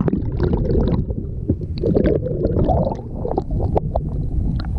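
Muffled underwater churning and gurgling picked up by a submerged camera as a landing net is swept under a hooked catfish, with bubbles and many small clicks and knocks.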